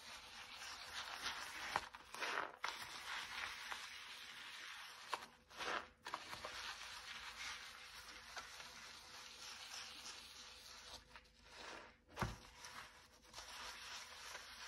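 Soapy sponge scrubbing a sink: a soft, steady rubbing and squishing of thick suds, with a few louder strokes and a dull knock about twelve seconds in.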